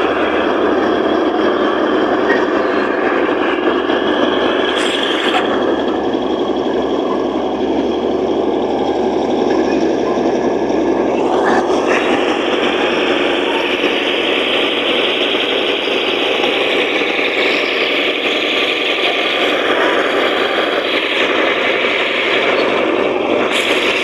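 Komatsu D155A bulldozer's diesel engine running steadily under load as it pushes soil, its tone shifting a little about halfway through.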